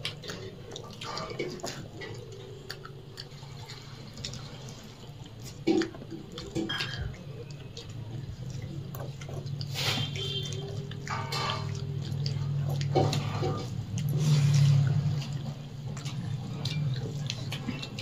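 Hand-eating of rice and egg curry from steel plates: fingers squishing and mixing the wet rice, chewing, and small scattered clicks of fingers against the plates, over a steady low hum.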